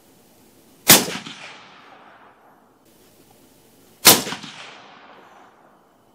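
Two suppressed rifle shots about three seconds apart from a Ruger American Alaskan in .338 Win Mag fitted with a Banish 338 suppressor, each sharp report followed by a fading echo.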